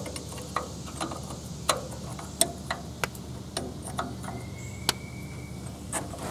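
A hand wrench on the carburetor mounting nuts of a Ford 8N tractor, clicking and clinking as the nuts are tightened. There are about ten sharp, separate ticks at uneven spacing.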